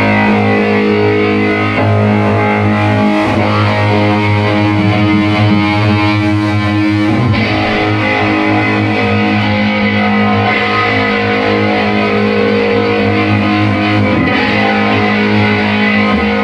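Electric guitar with heavy distortion played on its boost (solo) channel, long held notes and chords changing every few seconds.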